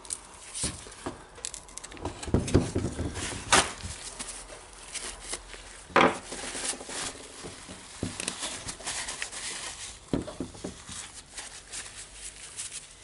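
Paper towel rustling and crinkling as gloved hands wipe grease and dust off a hammer drill, with a few sharper knocks and taps in between.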